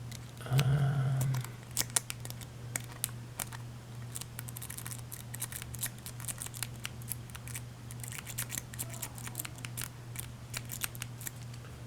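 Metal snake rake scraping and clicking in the keyway of a laminated padlock, in irregular sharp ticks with a few short scratchy runs. A short hummed voice sound about half a second in.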